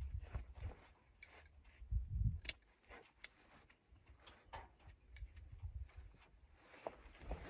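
Irregular footsteps with small clicks and clinks of carried hunting gear, and one sharp, loud click about two and a half seconds in.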